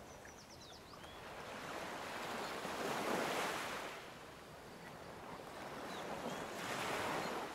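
Background recording of ocean waves washing in softly, swelling twice about four seconds apart.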